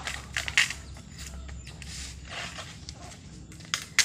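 Bamboo poles and stalks being handled: a few sharp hollow knocks and clacks with rustling between, two strikes about half a second in and the loudest pair near the end.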